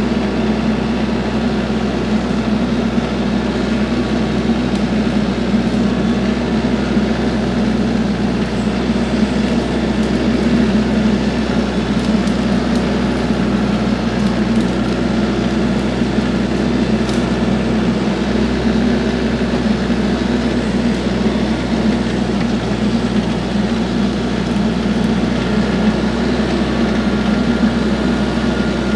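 TYM 474 compact tractor's diesel engine running steadily.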